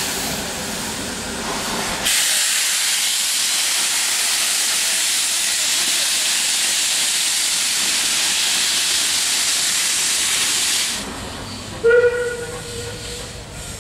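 Beyer Peacock 2-4-0 tank engine No.13 Kissack's safety valves blowing off: a loud steady hiss that starts sharply and cuts off about nine seconds later. Near the end a short steam whistle toot sounds and trails away over softer hissing steam.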